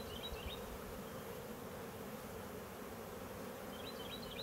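Honeybees humming steadily from an open hive, with faint short high chirps at the start and again near the end.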